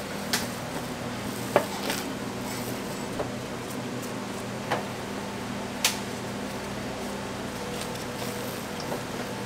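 Gloved hands kneading ground beef mixed with diced fat in a stainless steel bowl: a handful of short knocks and clicks against the steel bowl, over a steady low kitchen hum.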